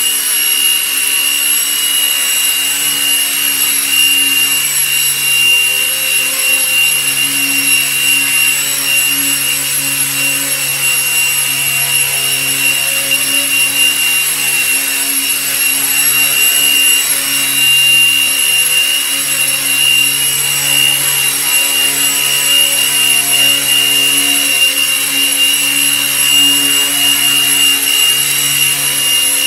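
Micro electric RC helicopter, Align T-Rex 150 mechanics with a T-Motor 1502 brushless motor in a 1/32 JetRanger scale body, flying. A steady high-pitched motor whine runs over a lower rotor hum that keeps swelling and dipping as it manoeuvres.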